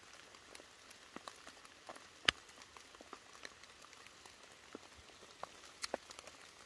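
Light rain: scattered raindrops ticking at irregular intervals, with one louder drop about two seconds in and a couple more near the end.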